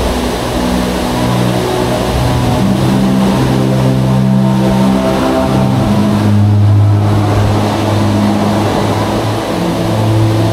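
Dark-ride soundtrack through the show speakers: low, held droning tones that shift in pitch every second or two, over a steady rushing background.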